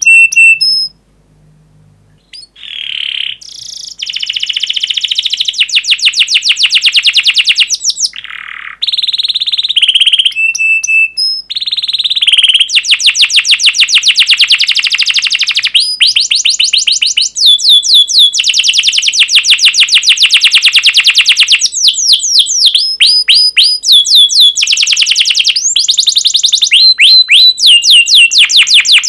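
Domestic canary singing: long fast trills of rapidly repeated notes, broken up by runs of sharp falling chirps ('cuit cuit'), after a short pause about a second in.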